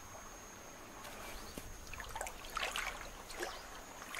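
Faint water trickling at a river's edge, with a few irregular scuffing, splashing noises between about two and three and a half seconds in.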